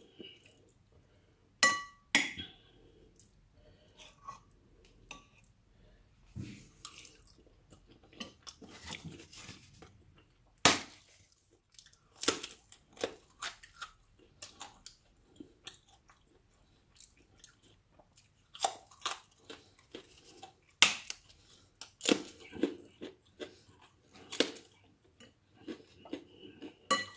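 Close-up chewing of food, with a metal spoon clinking and scraping against the bowl in short, sharp strikes about ten times.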